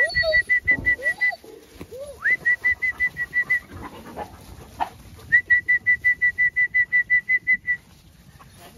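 Someone whistling to call a flock of sheep: three runs of quick, evenly spaced high notes, about seven a second, each run opening with an upward slide.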